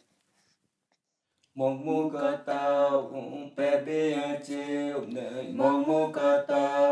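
Unaccompanied chanted singing that starts about a second and a half in, after a moment of silence, and goes on in phrases broken by short pauses.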